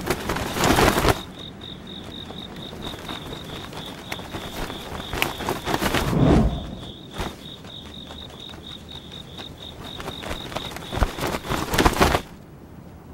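An insect chirping steadily in a high, evenly pulsed trill, with loud rushing, swishing noises near the start, around the middle and near the end.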